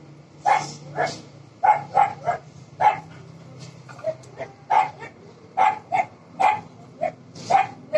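A dog barking in short, sharp play barks, about two a second, while it wrestles with a young macaque.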